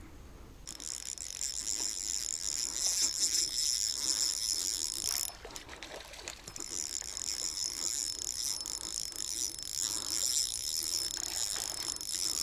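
Spinning reel being cranked, its gears whirring steadily as the lure is wound in. The whirring stops about five seconds in, during a new cast, and starts again about a second later.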